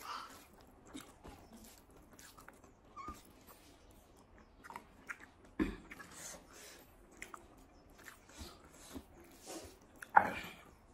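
Close-up mouth sounds of a person eating rice and leafy curry by hand: chewing, lip-smacking and small wet clicks. Two louder short sounds come about halfway through and again near the end.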